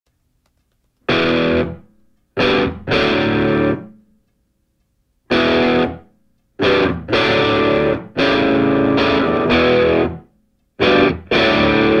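Background music: distorted electric guitar chords played in short stabs, each cut off into dead silence before the next.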